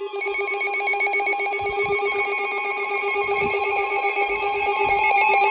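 Weather radio alert alarm sounding: a loud, steady electronic tone with a rapid flutter, signalling an incoming severe thunderstorm warning.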